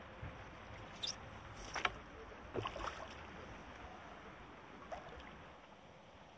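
A few short, sharp clicks and knocks of fishing tackle being handled, a landing net and pole against the seatbox, over a steady outdoor hiss.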